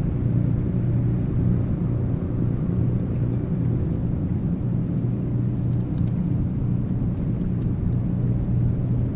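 Steady low mechanical hum at a constant pitch, with no change in speed or level.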